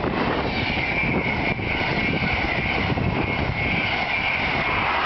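Passenger train of Mark 3 coaches, led by a driving van trailer, passing at speed close by: a steady rush of wheels on rail and air, with a steady high whine through most of it.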